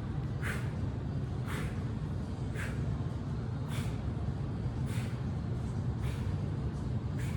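Exerciser's breathing on a close microphone: short, sharp exhales about once a second in a steady rhythm, paced with dead bug repetitions. A steady low hum runs underneath.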